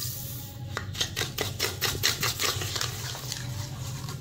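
Sugar poured into a bowl of beaten egg and milk, then a metal spoon stirring the mixture, clicking quickly and repeatedly against the bowl, over a steady low hum.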